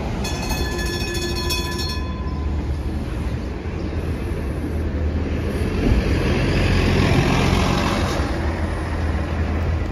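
A city bus passes close by and pulls away, its engine and tyre noise swelling to loudest about two-thirds of the way in over a steady low rumble of street traffic. A brief high whine sounds in the first two seconds.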